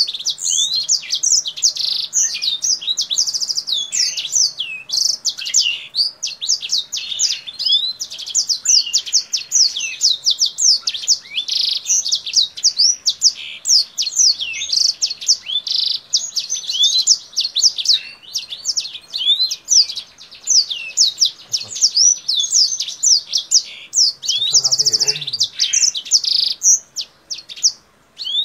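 A caged kingthroat finch singing almost without pause, a rapid run of high chirps, quick trills and sweeping notes, a song that is likened to a black-throated canary's. A brief lower, rougher sound joins in near the end.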